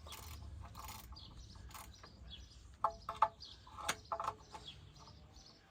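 Faint metal clinks and clicks of socket-set hand tools being handled: a cluster of short, briefly ringing clinks in the second half, over a low steady hum.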